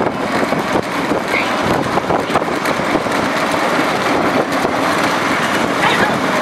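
Steady running noise of a moving road vehicle on a highway, with engine and tyre noise and no distinct strikes or calls.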